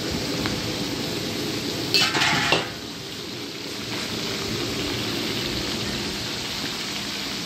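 Boiled noodles and vegetables sizzling steadily in a large metal wok. A metal spatula clatters against the pan in a short burst about two seconds in.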